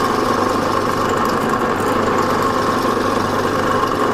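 Drill press running, its twist drill boring down into a wooden block and throwing out chips: a steady whine over a low motor hum.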